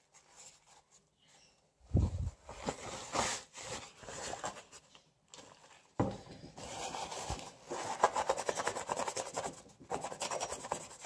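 Paper tissue scrubbing old thermal paste off a finned heatsink, in fast back-and-forth rubbing strokes. The rubbing starts about two seconds in, pauses briefly, and grows denser near the end, with a couple of knocks on the wooden workbench.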